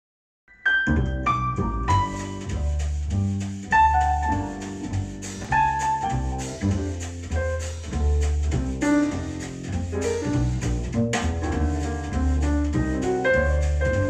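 Jazz with piano and a deep bass line, played through a pair of Edifier S2000MK3 bookshelf speakers and heard in the room. It starts about half a second in and runs on at a steady level.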